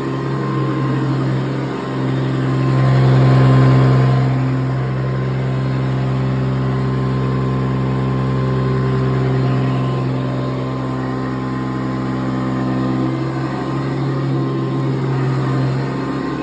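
Hoover Decade 80 upright vacuum cleaner running, its motor giving a steady, even hum that swells louder for a moment about three seconds in.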